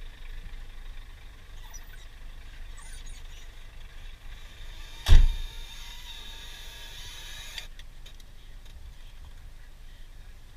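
Scania truck engine running at idle, heard from inside the cab. About five seconds in comes a loud, sharp thump, followed by a hiss of about two and a half seconds that stops abruptly.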